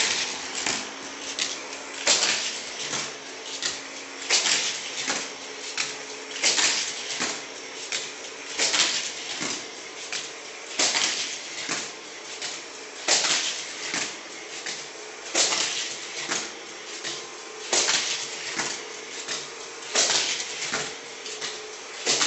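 Hot Wheels Altitude Crash track set's battery-powered booster running with a steady motor whir, while a die-cast toy car laps the plastic track loops, clattering loudly through the booster about every two seconds with lighter rattles in between.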